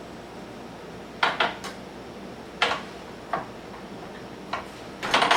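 Makita track saw and its guide rail being handled: a series of sharp clicks and clacks of hard plastic and metal parts, a few spread out and then a quick cluster near the end.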